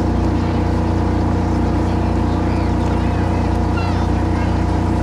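A steady engine drone at constant speed, its even stack of tones unchanging throughout, with faint crowd voices behind it.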